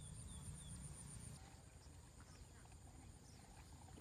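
Faint insect chirring outdoors: a rapid, evenly pulsed high trill that stops about a second and a half in, over a steady high whine, with a few short falling chirps near the start.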